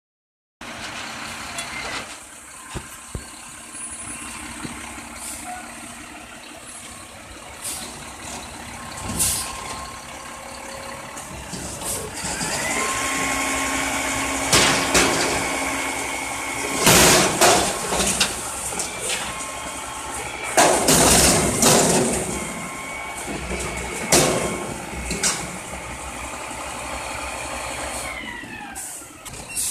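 Mack front-loader recycling truck with a McNeilus body working its hydraulic lift arms. The diesel engine revs up with a steady hydraulic whine while a dumpster is raised over the cab and emptied. From about halfway through come several loud bangs as the container is shaken and its load drops into the hopper.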